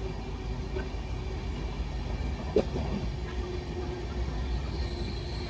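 Passenger train running over a river bridge: a steady low rumble of wheels and carriage, with a single sharp click about two and a half seconds in.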